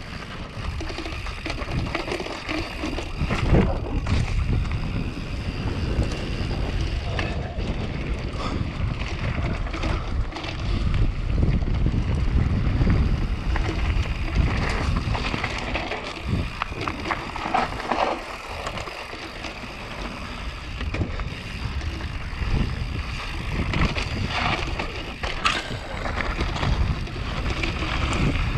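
Mountain bike descending a rough trail at speed: wind buffeting the microphone and tyres rolling over dirt and gravel, with the bike rattling and knocking over bumps.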